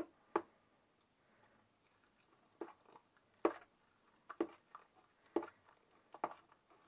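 A metal spoon stirring raw eggs into a wet, grated beetroot mash in a bowl: irregular clicks and knocks of the spoon against the bowl, with soft squelching from the mixture.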